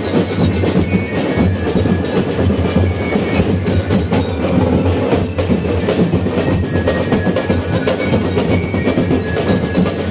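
A percussion group drumming: many drums and struck percussion playing a loud, dense, continuous beat.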